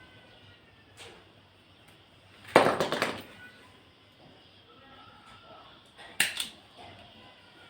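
Handling noises: a faint click, then a short rattling clatter lasting under a second, and another brief clatter near the end.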